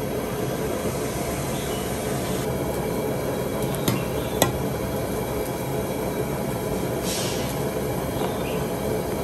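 A large pan of water at a rolling boil around a whole conch shell, bubbling and rushing steadily. About four seconds in come two sharp metal knocks half a second apart, as the skimming ladle strikes the pan.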